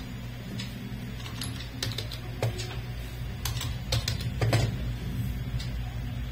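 Computer keyboard typing: scattered, irregular keystrokes as a word is typed, deleted and retyped, over a steady low hum.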